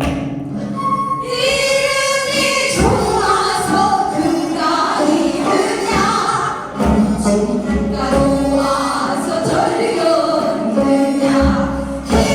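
Korean folk song (minyo) being sung with instrumental accompaniment, with deep low beats about every four seconds.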